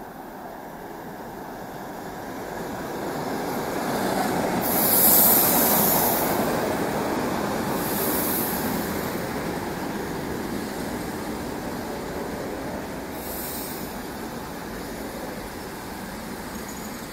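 ED4M electric multiple unit pulling into the platform and slowing: the rumble of the passing cars swells to its loudest about five seconds in, then slowly fades as the train brakes. Short high hisses come around five, eight and thirteen seconds in.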